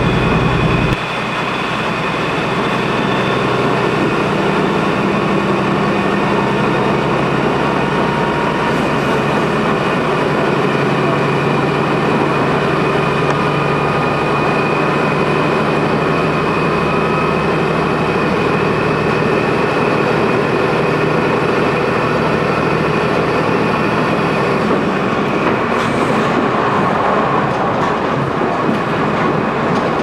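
Inside a KiHa 200 series diesel railcar running at speed: a steady drone of the engine and running gear over the rails, with some steady whining tones. A deep low rumble cuts off about a second in and the sound eases slightly.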